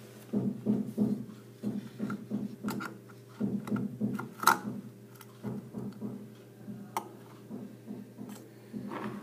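A metal hand pick scraping and tapping on a CNC-cut metal sheet as the cut-out lettering is pried free, with irregular small scrapes and a few sharp clicks over a steady low hum.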